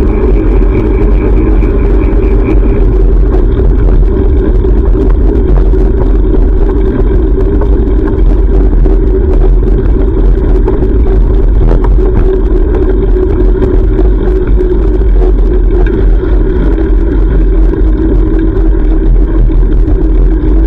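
Loud, steady rumble of road traffic and riding noise picked up by a GoPro on a moving bicycle, with a short run of rapid high ticks in the first few seconds.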